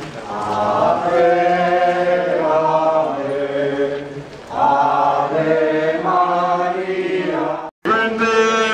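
A group of voices chanting a sung prayer together, holding long notes. The sound cuts out for an instant near the end.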